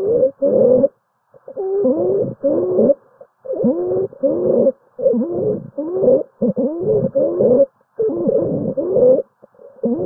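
A person's breathing with stridor: rapid, repeated noisy breaths, each carrying a pitched tone that bends up and down, about one and a half breaths a second. It is the sign of air moving roughly through a partly blocked upper airway at the larynx.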